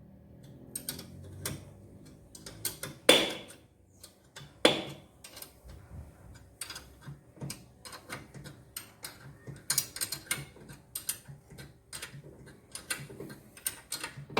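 Small metallic clicks and taps of a wrench working a small bolt threaded into a car's rear brake drum to push the drum off the hub, with two louder metal knocks about three and nearly five seconds in and quicker clicking near the end.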